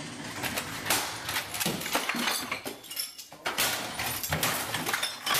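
A rapid run of bangs, knocks and clatters as things are struck and knocked about, with some clinking among them.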